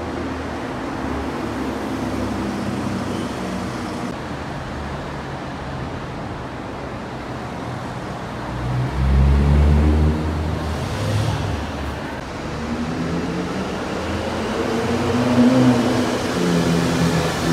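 Cars, sports cars among them, driving past one after another in a road tunnel, their engines echoing off the tunnel walls. The loudest pass, a deep engine rumble, comes about nine seconds in, and another engine swells near the end.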